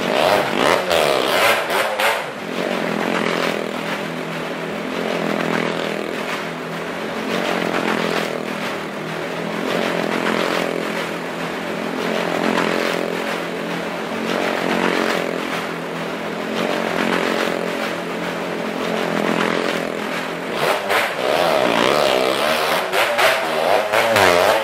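Motorcycle engine revving inside a wall-of-death drum (tong setan), its pitch rising and falling continuously, with stronger up-and-down revving near the end.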